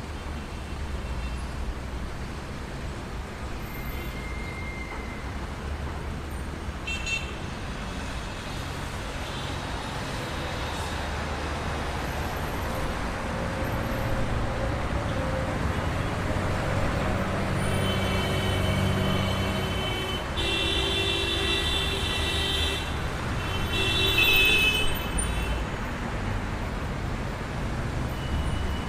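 Traffic jam: a steady rumble of idling car and truck engines with car horns honking. A few short toots come early, then several horns sound together in the later part, held for a second or two at a time.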